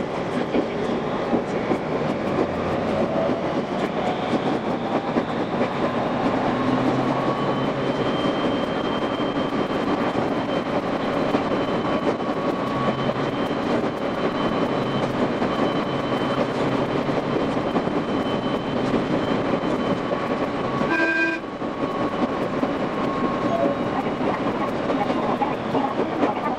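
Running sound of a local electric train on the Ou Main Line, played at five times speed: the wheel clatter over the rails comes as a dense, fast rattle under a steady whine. Near the end it drops out briefly, and a short high tone sounds in the gap.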